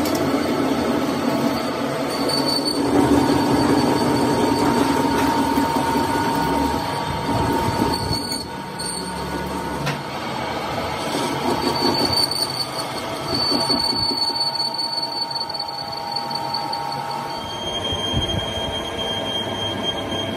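Metal lathe turning a steel compressor gas-jacket sleeve, the spindle and gears running steadily while the cutting tool shears off long curling chips. High-pitched squealing tones from the cut come and go.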